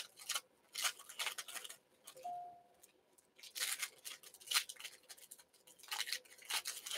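Foil trading-card pack wrappers crinkling and tearing open by hand, in several short bursts of crackle. A brief beep sounds about two seconds in.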